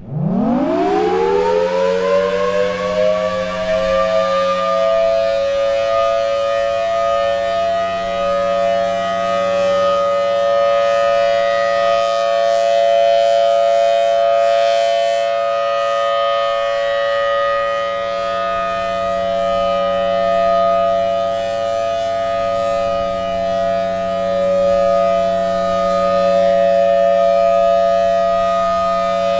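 Federal Signal Thunderbolt 1003 outdoor warning siren starting its one-minute steady alert: it winds up in pitch over about four seconds, then holds a steady chord of tones. The level swells and eases gently as the rotating horn sweeps around.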